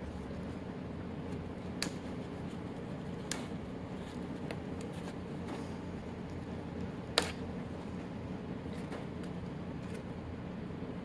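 A few light clicks and knocks from hands and a small screwdriver working at the plastic wiring and fuel-line connectors on a motorcycle fuel tank, over a steady low hum of room noise. The sharpest click comes about seven seconds in.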